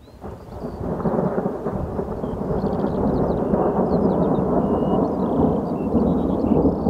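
Thunderstorm: thunder rumbling as a continuous low roar, with rain, swelling over the first second and then holding steady.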